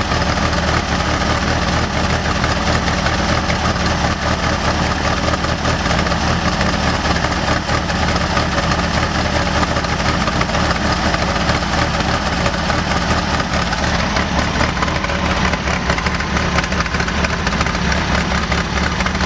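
Volkswagen 1600 dual-port air-cooled flat-four idling roughly and unevenly, popping like popcorn. The rough idle persists despite a rebuilt Solex 34 PICT-3 carburettor and a new SVDA distributor, cap, rotor, wires and plugs.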